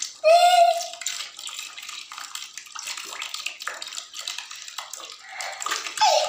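Water sloshing and splashing in a plastic basin holding catfish, an irregular patter of small splashes. A brief high voice-like note sounds just after the start and is the loudest thing.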